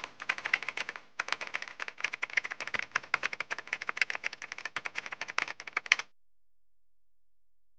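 Typing sound effect: a rapid run of key clicks with a short break about a second in, stopping about six seconds in.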